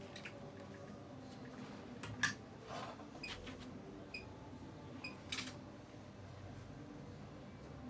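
A few sharp clicks and light handling knocks, the loudest about two seconds in, with three faint short beeps in between.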